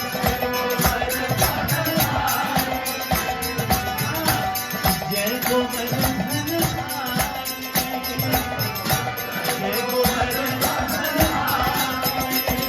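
Devotional kirtan music: fast, steady hand-drum and jingling percussion strokes over a sustained held drone, with a wavering melody line coming and going.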